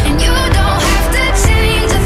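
Background pop music: sustained instrument tones over a steady drum beat.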